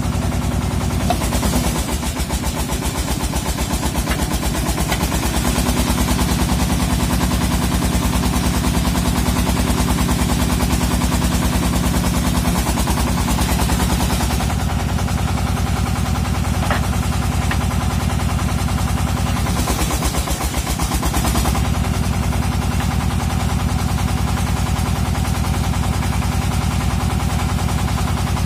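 Engine of a water-well drilling machine running steadily with a fast, even knocking beat, briefly dipping and recovering twice.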